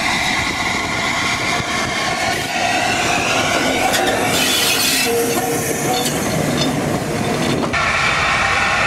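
LNER A4 Pacific steam locomotive 60007 passing at close range, a steady loud mix of exhaust, motion and wheel-on-rail noise. A brief loud hiss comes about four and a half seconds in, and the sound changes abruptly near the end.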